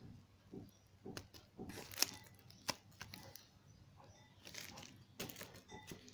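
A paper envelope and a card being handled close to the microphone: irregular rustling and crinkling with a few sharp taps.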